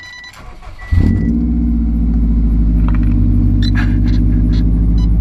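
2006 Subaru WRX's turbocharged flat-four cranks and catches about a second in with a loud burst, then idles loud and steady. Its muffler is removed, so the exhaust runs nearly straight out from the downpipe.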